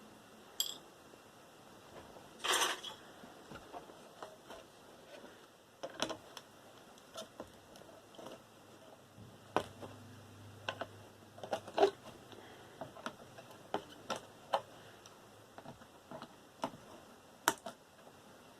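Scattered clicks, taps and knocks of small metal and plastic computer parts being handled and pulled apart, with one short scrape about two and a half seconds in. A faint low hum comes in for a couple of seconds around the middle.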